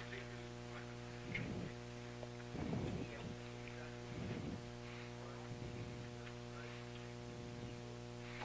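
Steady electrical mains hum in the church's recording or sound system, with a handful of faint soft thumps at irregular intervals.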